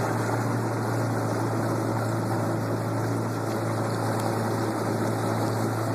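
Boat engine running steadily, a constant low hum under a spread of engine and water noise.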